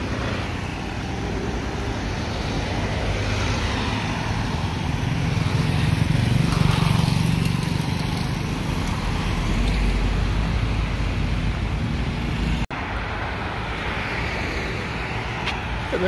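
Road traffic: cars driving past close by, a steady rumble of engines and tyres that swells as one passes about six seconds in. The sound cuts out for an instant about thirteen seconds in.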